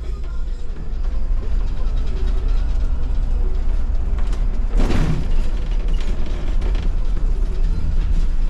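MAN city bus running, a steady low rumble heard in the driver's cab, with one short, loud burst of noise about five seconds in.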